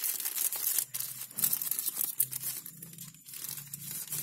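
Crinkly wrapping rustling and crackling in the hands as a pair of sunglasses is unwrapped, in irregular bursts.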